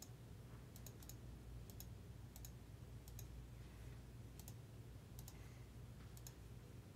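Faint computer mouse clicks, roughly one a second, each a quick double tick, over a low steady hum.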